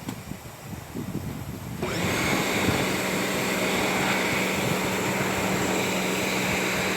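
Pressure washer at work: a low rumble, then about two seconds in a steady hiss of the spray jet starts abruptly over a steady machine hum.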